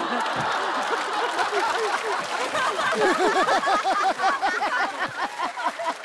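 Studio audience laughing, many voices overlapping, with some clapping mixed in.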